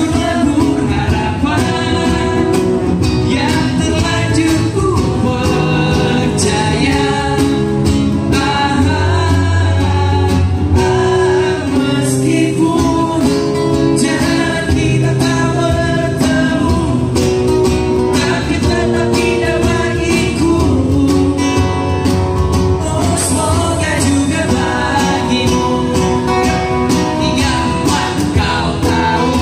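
Live acoustic band performance: a man sings into a microphone over two acoustic guitars, with a cajon keeping the beat.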